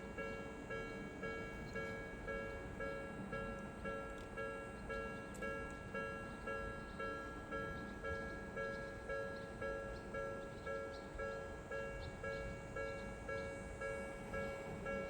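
Japanese railway level-crossing alarm ringing, a steady repeated electronic clang at about two strokes a second.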